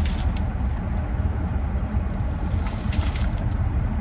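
Plastic packaging crinkling as packs of braiding hair are handled, in short bursts near the start and about three seconds in, over a steady low rumble.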